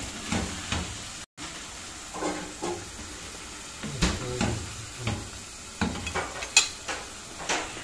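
Chicken curry sizzling in a stone-coated pot while a wooden spoon stirs and scrapes through it, with scattered knocks of the spoon against the pot; the sharpest click comes near the end. The sound cuts out for a moment about a second in.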